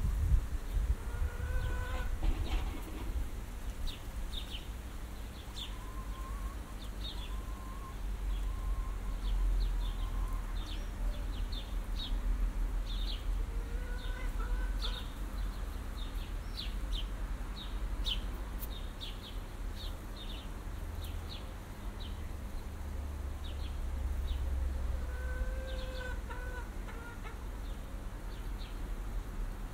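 Small birds chirping over and over, with chickens giving a few short clucking calls about a second in, midway and again near the end, over a steady low wind rumble.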